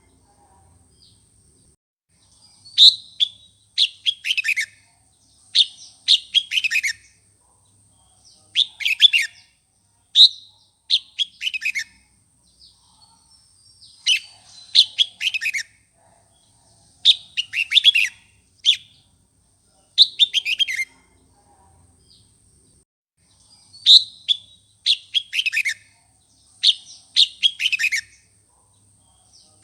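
Red-whiskered bulbul singing a fired-up song of short, quick phrases, each falling in pitch, repeated every second or two, of the kind used to provoke wild-caught bulbuls.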